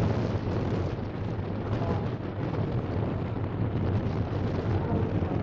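The four Zenoah 22cc two-stroke petrol engines of a large-scale RC Handley Page HP42 model droning steadily in flight, mixed with wind rumbling on the microphone.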